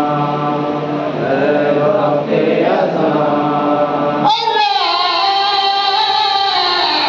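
Men's voices chanting a noha, an Urdu mourning lament, with a steady low drone; about four seconds in, the lead reciter's voice breaks in with one long, high held cry that slowly falls in pitch.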